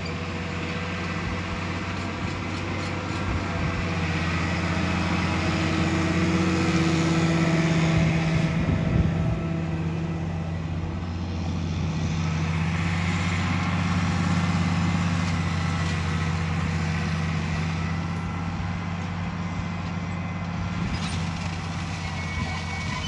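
International Harvester 1486 tractor's turbocharged six-cylinder diesel running steadily under load while pulling a Kinze six-row planter. It swells in the middle as it passes close and eases off near the end as it moves away.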